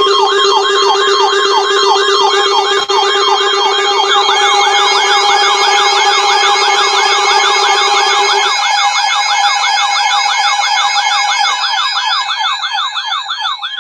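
Loud electronic siren sound: several siren tones sounding together, each sweeping rapidly up and down, over a steady lower tone that stops about eight seconds in. The sweeps quicken near the end.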